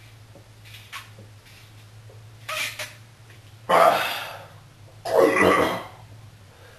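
A man coughing and sputtering after chugging a shotgunned can. There is a short burst about two and a half seconds in, then two loud coughing fits a little over a second apart.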